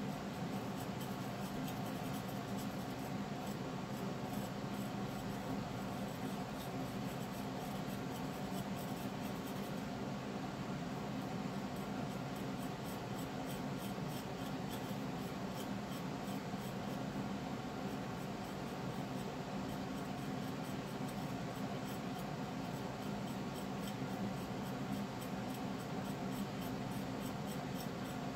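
Steady background hum and hiss with a few constant low tones, no distinct strokes.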